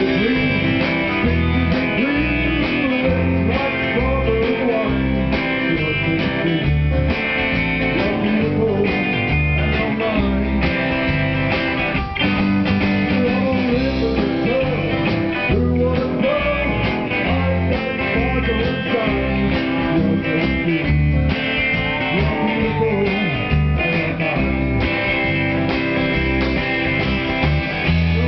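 Live rock band playing: electric guitar over drums and bass with a steady beat.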